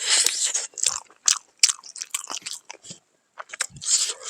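A person chewing and biting food close to the microphone: irregular crunching bites and wet mouth noises, with a short pause about three seconds in.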